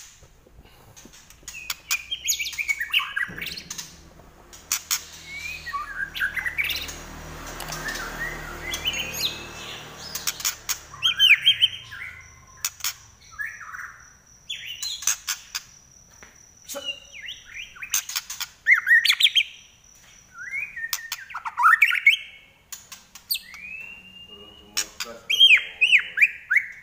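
White-rumped shama singing in quick varied phrases of sliding whistles and sharp clicks. A low rumbling noise sits under the song for several seconds in the first half, and a thin steady high tone runs through the middle.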